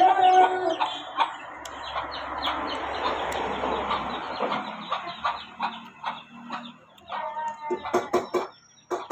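Chickens clucking, with a rooster's crow trailing off in the first second. A run of sharp clicks and knocks comes near the end.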